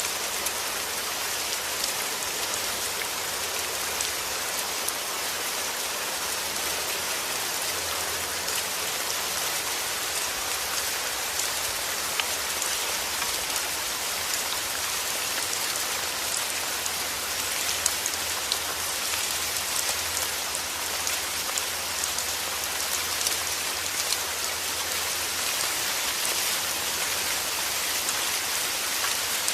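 Heavy rain falling steadily: a dense, even hiss of rain on surfaces, flecked with many small drop ticks.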